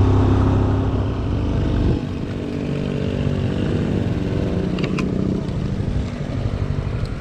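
Motorcycle engine running on the move. About two seconds in its note drops and eases off as the bike slows, then runs on lighter and steady, with a couple of light clicks near the middle.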